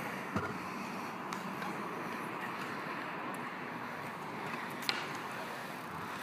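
Scooter wheels rolling over a concrete skatepark, a steady rolling noise with a few sharp clacks: one less than a second in, one just over a second in, and one near five seconds.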